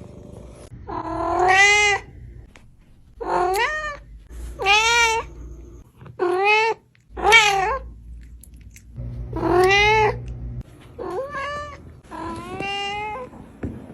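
A cat meowing over and over: about eight drawn-out meows, each rising and then falling in pitch.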